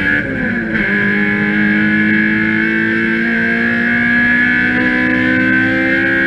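A race car's engine heard from inside the cockpit. Its note dips sharply near the start, then climbs slowly and steadily as the car accelerates down the straight.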